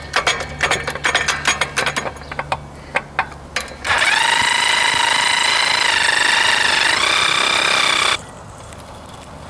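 Rapid clicking of tools on suspension parts, then a power tool's motor whining steadily for about four seconds with small shifts in pitch as it spins down fasteners on the suspension arm and hub, before cutting off suddenly.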